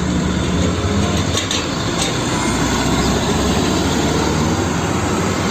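Hino Dutro fuel tanker truck's diesel engine running with tyre and road noise as the truck drives past, a steady, loud rumble and hiss with a low hum underneath.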